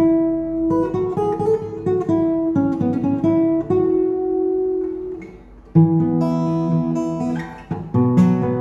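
Background music: acoustic guitar playing picked notes that fade briefly about five seconds in, followed by strummed chords.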